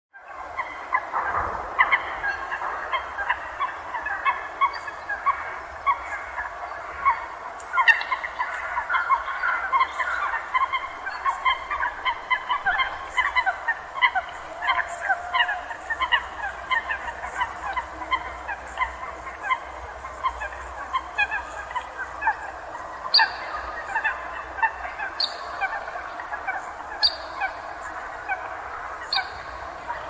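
A large flock of water birds calling all at once: a dense, continuous chatter of short overlapping calls, with sharper high-pitched calls coming every second or two in the last several seconds.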